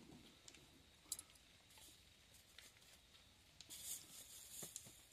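Near silence with faint rustling and a few light clicks of something being handled.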